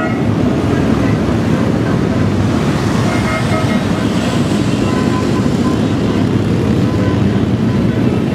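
A line of motorcycles riding past with their engines running, over steady street traffic noise. A semi-trailer truck passes close by in the middle, bringing a swell of hissing road noise.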